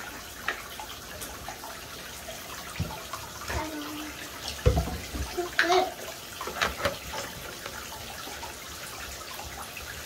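Water running into a bathtub, a steady rush with a few knocks and splashes in the middle.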